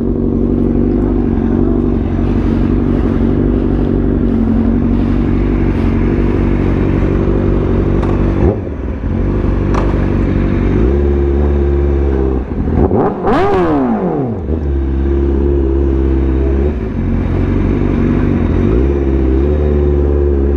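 Honda CBR1000RR-R SP's inline-four engine idling, with one quick rev that rises and falls about two thirds of the way in, then running steadily as the bike pulls away.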